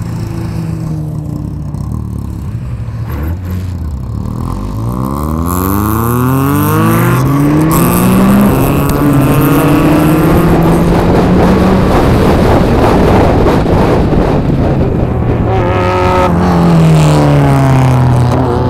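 Peugeot 106 1.6 16v's four-cylinder engine heard onboard, accelerating hard through the gears: the pitch climbs, drops at each upshift and climbs again, then falls away near the end as the car slows for a corner.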